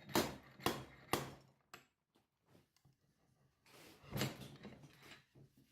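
Three sharp knocks about half a second apart, then a longer, rougher knock about four seconds in.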